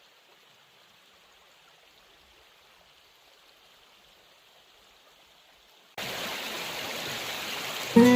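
Rushing water of river rapids, an even hiss: faint at first, then much louder after a sudden jump about six seconds in. A plucked acoustic guitar note comes in right at the end.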